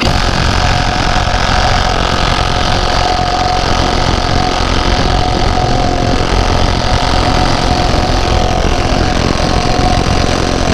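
Battery-powered impact wrench hammering continuously on a seized lug nut, starting abruptly and keeping up a steady rattle with a ringing tone as it works to break the nut loose.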